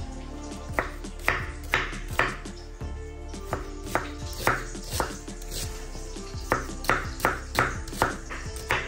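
Knife chopping on a cutting board in runs of strokes, about two a second, with a short pause near the middle. Background music plays throughout.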